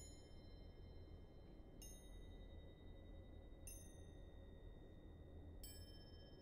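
Small mounted antique cymbals (crotales) struck one at a time with a thin mallet, about every two seconds. Each strike gives a soft, high, bell-like ping that rings on and overlaps the next. A faint low hum sits underneath.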